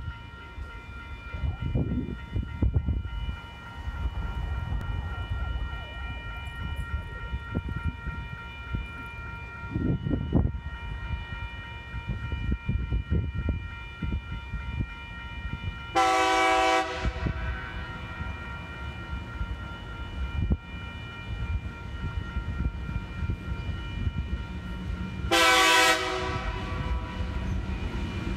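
TasRail diesel locomotive passing with a steady low engine and wheel rumble, and two blasts of its horn about nine seconds apart, the first a little longer. Steady ringing tones fill the first half and then fade, typical of level crossing warning bells.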